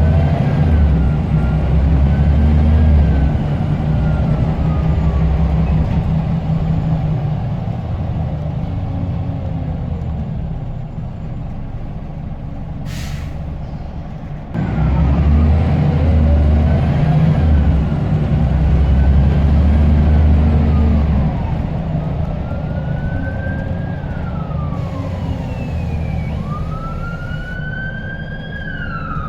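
Scania L94UB bus's diesel engine pulling under load, with its turbocharger whistling: the whistle rises as the bus accelerates and falls away at each semi-automatic gear change, over and over, with a sharper rise and fall near the end.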